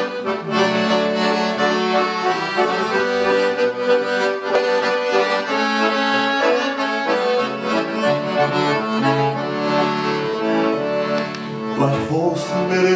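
Piano accordion playing a song's instrumental introduction, a melody over held chords.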